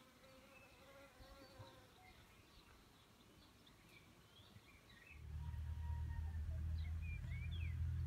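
Small birds chirping faintly over a buzzing insect. About five seconds in, a louder steady low drone with several stacked tones sets in and holds.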